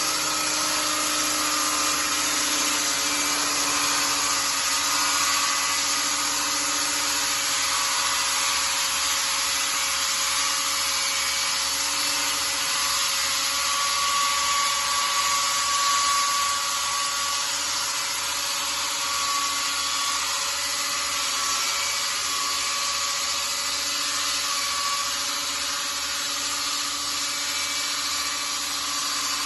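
Electric diamond core drill, water-cooled, running steadily as it bores up into a concrete ceiling slab: an even grinding with a constant motor whine.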